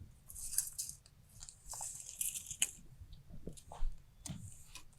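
Faint rustling and scraping handling noise with a few light clicks, coming and going in short patches.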